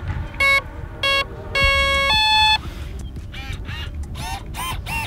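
Electronic startup beeps from the Arrows Prodigy's brushless ESC as its 3S battery is plugged in: two short beeps, a longer one, then a higher tone, the usual arming signal. A quick run of short warbling chirps follows.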